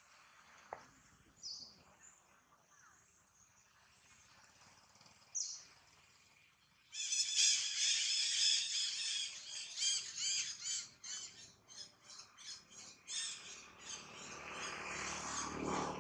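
Outdoor animal calls: a few short, high calls at first, then from about seven seconds in a loud, dense run of rapid squawking calls that thins out towards the end.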